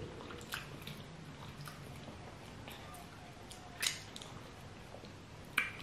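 Wet mouth smacks and finger-sucking from eating fufu with peanut soup by hand: scattered short clicks, the loudest about four seconds in and another near the end.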